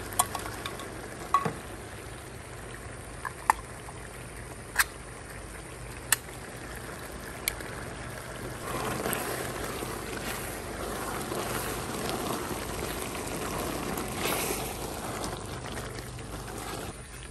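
Sharp knocks, six in the first eight seconds, as condensed golden mushroom soup is tapped out of cans into a steaming aluminum pot of crawfish étouffée. About nine seconds in, a louder wet sloshing takes over as the thick, simmering mixture is stirred with a wooden spoon.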